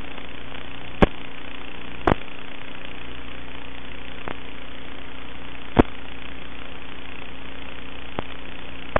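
Steady buzzing hiss and hum from the drone's FPV video-link audio feed, broken by a few sharp pops, the loudest about one, two and six seconds in.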